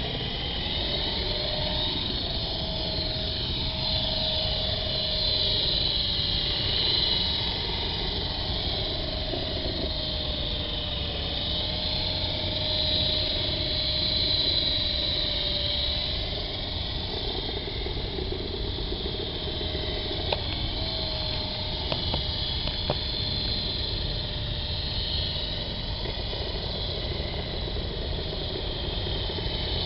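Big QS 8005 radio-controlled helicopter in flight: its electric motor and rotors whir steadily, the pitch wavering slightly as it hovers and manoeuvres. A few light clicks come about two thirds of the way through.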